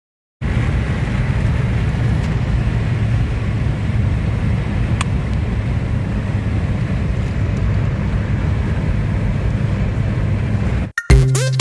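Steady low rumble of a car driving along a road. Near the end it cuts to music with a beat.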